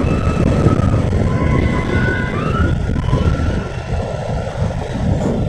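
Moving motorcycle heard from the pillion: steady engine and road noise under heavy wind buffeting on the microphone, with a faint wavering whine.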